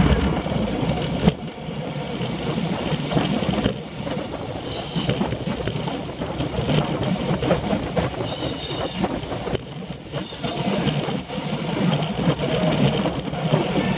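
Riding noise from a road bicycle picked up by a bike-mounted action camera: steady wind buffeting on the microphone with tyre and road rumble and rattle through the mount.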